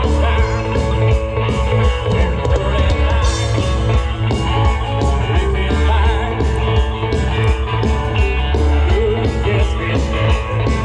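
Rock band playing live through a PA, with a steady beat and heavy bass.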